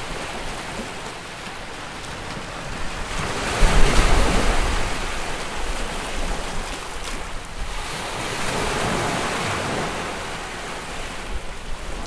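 Sea waves washing with wind, a steady rushing noise that swells loudest about four seconds in, with a low rumble, then settles again.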